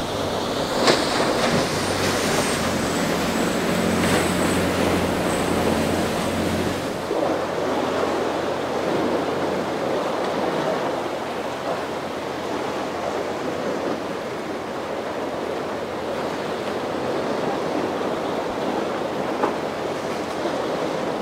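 A boat's engines drone steadily with a thin high whine over wind and breaking surf. The engine sound ends abruptly about seven seconds in, leaving wind and waves washing.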